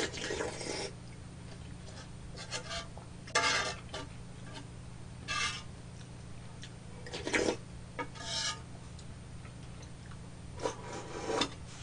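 A spoon scraping rice out of a black bowl, about seven short rasping scrapes a second or two apart.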